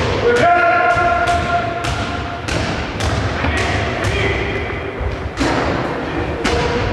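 Balls thudding on the floor and walls of a large sports hall: a run of irregular sharp impacts, roughly two a second, each with a hall echo.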